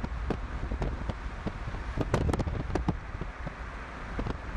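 Chase vehicle on the move with a low road and wind rumble, peppered with irregular sharp ticks and knocks against the car, several a second.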